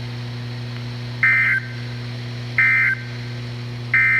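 Three short bursts of SAME digital data tones from a NOAA Weather Radio broadcast, about a second apart, over a steady low hum. They are the end-of-message (EOM) code that closes the Required Weekly Test.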